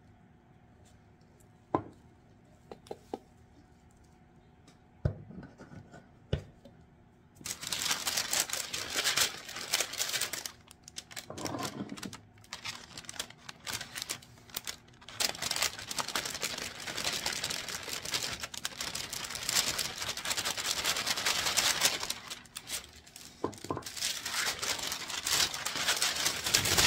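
A few light clicks, then from about seven seconds in a sheet of paper crinkling and rustling as it is lifted and folded to pour loose glitter back into its shaker bottle.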